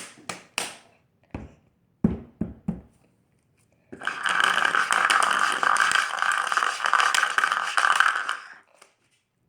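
Slime squelching and popping in the hands several times, then water running from a tap for about five seconds to wash the slime.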